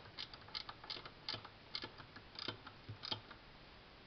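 Ratcheting wrench clicking, about three or four clicks a second, as it snugs up the bolts on a turbocharger's wastegate actuator bracket. The clicking stops a little after three seconds in.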